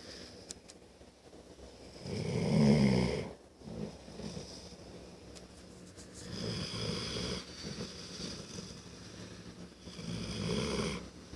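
Snoring in sleep: three snores about four seconds apart, the first the loudest, with quieter breathing between them.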